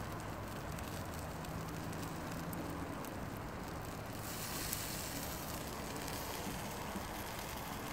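T-bone steak sizzling over hot charcoal on a Weber kettle grill: a steady hiss that grows a little brighter about four seconds in.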